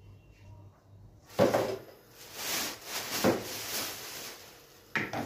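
Thin plastic shopping bags rustling and crinkling while plastic storage baskets and containers are handled and set down on a table, with a few sharp knocks: one about a second and a half in, one a little after three seconds, and one near the end.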